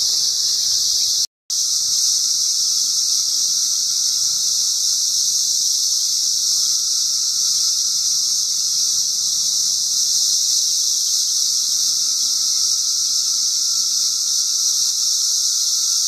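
Dense chorus of 17-year periodical cicadas singing in the trees: a loud, steady, high-pitched drone with a fainter lower hum beneath it. It cuts out for a split second about a second in, then carries on unchanged.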